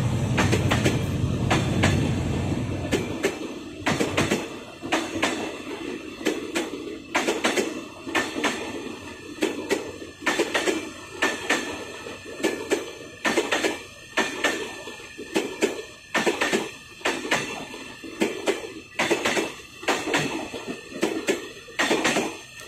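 Passenger coaches of an express train rolling past, their wheels clacking over rail joints in quick groups of knocks. A low rumble fills the first few seconds.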